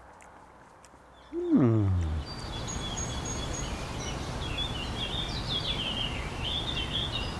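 Small birds chirping and twittering in quick high trills over a steady low rumble. They begin after a single loud tone that falls steeply in pitch, about a second and a half in.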